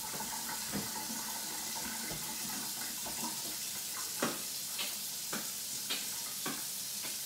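Kitchen sink faucet running steadily while hands are washed under the stream, with a few light knocks in the second half.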